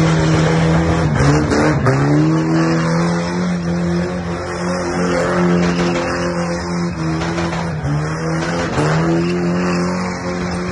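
Toyota KE70 Corolla doing donuts: its engine held high in the revs with the tyres squealing. The revs dip and climb back twice between one and two seconds in, and again near the end.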